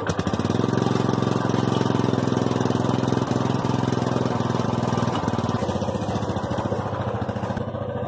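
Motorcycle engine idling just after being started, with a steady, even, rapid beat from the exhaust; the beat shifts slightly about five seconds in.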